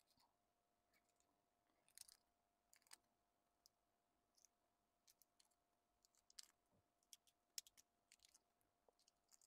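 Faint, irregular small clicks and crackles of a boiled balut's eggshell being cracked and picked off by hand, over a faint steady hum.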